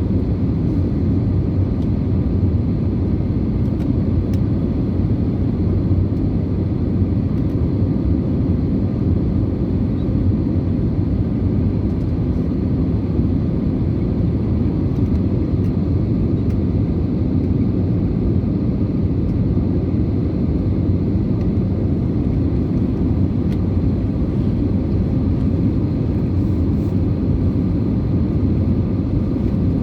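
Steady low cabin rumble of an Airbus A320neo in flight, the engine and airflow noise heard from inside the passenger cabin, unchanging throughout.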